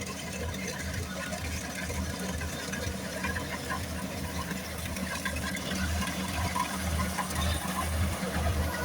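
Combine harvester's engine running steadily with a low pulsing hum and scattered mechanical rattling.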